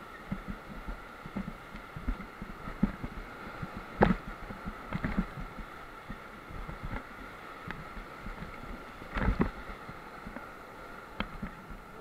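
An inflatable raft runs white-water rapids: rushing water with irregular low thumps as the waves hit the raft. Two louder knocks or splashes come through, one about a third of the way in and one about three-quarters of the way through.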